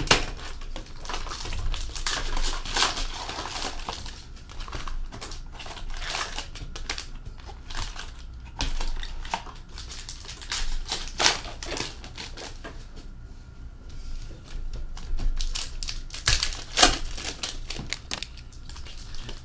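Wrapped hockey card packs rustling and crinkling as they are pulled out of a cardboard hobby box by hand and stacked, with many short clicks and taps of packs and box on a glass tabletop.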